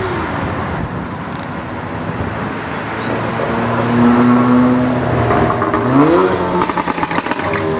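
Tuned Audi S3 sedan's turbocharged 2.0-litre four-cylinder running through a Milltek exhaust, the revs rising briefly about six seconds in. Near the end a rapid string of exhaust crackles and pops follows.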